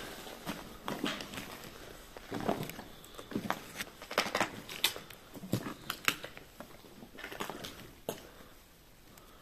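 Footsteps crunching and scraping over loose rubble and debris, an irregular run of clicks and crunches that is loudest in the middle and thins out near the end.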